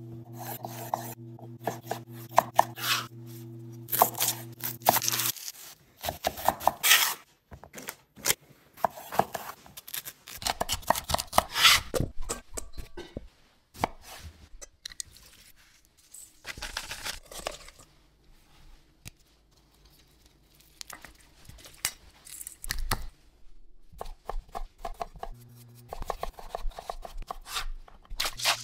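Kitchen knife cutting produce on a wooden cutting board: a string of sharp knife strikes and slicing sounds, irregular and in clusters. A steady low hum runs under the first five seconds.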